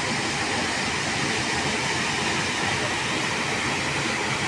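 Steady rush of water, an even noise with no distinct splashes or breaks.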